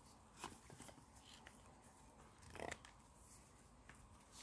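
Near silence with a few faint rustles and scrapes of nylon cord being handled and pulled tight around a bundle of small sticks, the clearest about half a second in and around two and a half seconds in.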